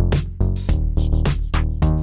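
Background music with a steady electronic beat and bass.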